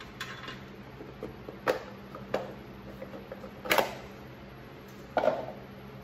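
Plastic air cleaner cover being pulled off a small log-splitter engine: a few sharp plastic clicks and knocks, the loudest a little past halfway, over a steady low hum.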